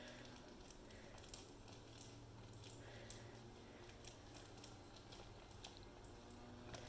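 Near silence: faint room tone with a low hum and a few scattered soft clicks.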